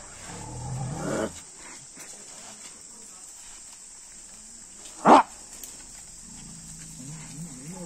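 A dog barks once, sharply and loudly, about five seconds in, with softer low sounds at the start and near the end.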